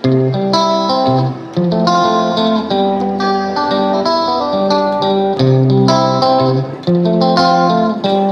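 Background music: a melody of plucked guitar notes.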